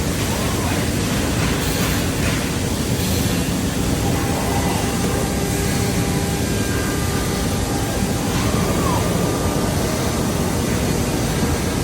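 Woodworking machinery running with a steady, even noise, as from a CNC drilling machine at work.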